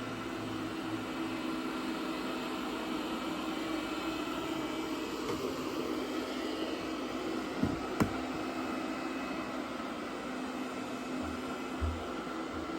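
XIEBro HR101 robot vacuum running, a steady whir with a low hum, with a sharp click about eight seconds in.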